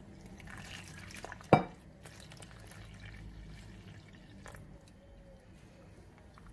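Warm water poured into a well of flour and fresh yeast in a mixing bowl, with one sharp clink against the bowl about a second and a half in. Afterwards faint splashing as fingers work the yeast into the water.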